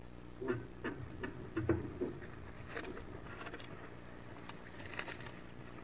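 Wood duck ducklings moving about on the floor of a wooden nest box: irregular scratches, taps and a few soft thumps from their feet against the wood, over a steady low electrical hum.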